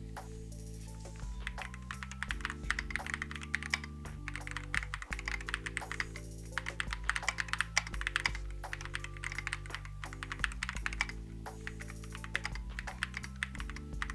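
Typing on an AKKO 5075B Plus mechanical keyboard fitted with Akko V3 Piano Pro linear switches: rapid, dense key clacks that come in quick runs, over background music.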